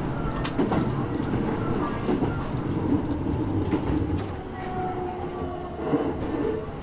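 Interior running sound of a Keisei 3700 series electric train between stations: a steady rumble from the wheels and track, with clacks as the wheels pass over rail joints.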